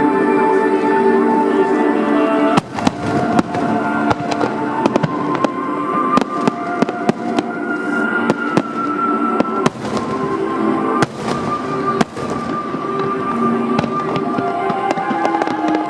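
Fireworks bursting in a rapid string of sharp cracks over music, starting about two and a half seconds in and going on irregularly.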